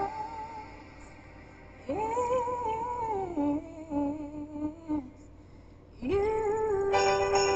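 Pop song playing back with a solo voice humming and singing long, held, sliding notes separated by quiet gaps. Fuller instrumental backing comes in near the end.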